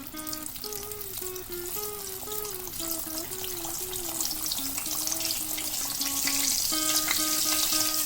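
Dal puri deep-frying in hot oil: a steady sizzle with crackling that grows louder as it cooks. Background music with a simple melody plays over it.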